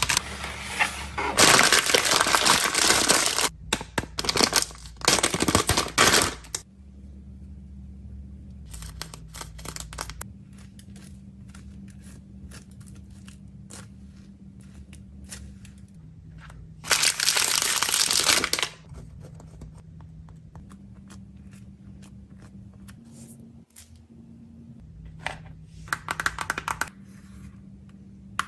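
Plastic packaging crinkling and tearing in several loud bursts, with scattered small clicks and taps of items being handled in between.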